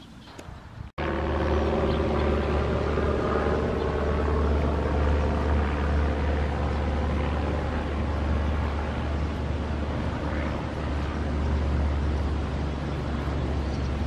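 A motor running steadily with a low rumble and a hum, starting abruptly about a second in.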